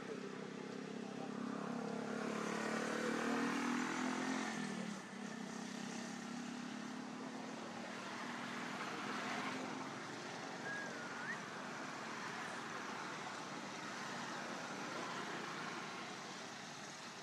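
Engine hum of a passing motor vehicle, loudest a few seconds in and dropping in pitch around five seconds, then a lower steady hum of traffic.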